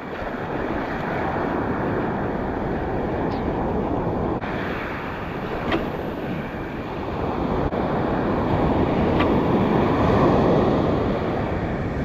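Ocean surf washing and breaking against a rocky shoreline, a steady rush with wind buffeting the microphone. The wash swells louder about eight seconds in and eases off near the end.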